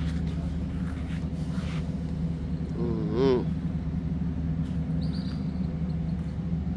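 Steady low hum of a running vehicle engine, with a brief wavering pitched call standing out about three seconds in.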